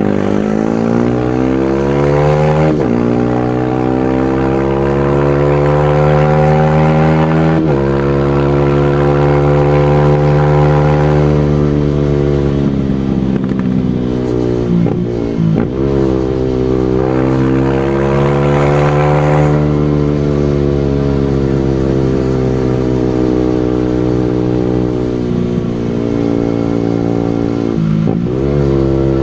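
Single-cylinder motorcycle engine ridden hard: the revs climb through the gears with sharp drops at upshifts about 3 and 8 seconds in, fall away around 12 seconds with quick blipped downshifts near 15 seconds, then pull up again and hold fairly steady before another shift near the end.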